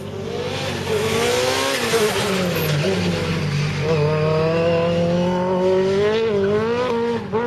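Citroen Xsara rallycross car's engine at full race effort, pitch climbing and dropping as it accelerates, lifts and changes gear, with quick blips near the end. A loud rushing noise rides over it between about one and three seconds in as the car passes close.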